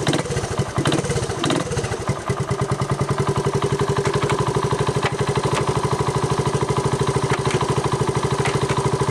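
Honda TRX 125 ATV's single-cylinder four-stroke engine running with a fast, even beat, a few knocks in the first two seconds, then settling to a very steady run. It runs smoothly, a sign the engine is in good health.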